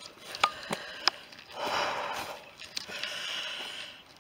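A walker breathing heavily, in two long breaths of about a second each. In the first second there are a few light snaps and rustles of footsteps on dry leaf litter.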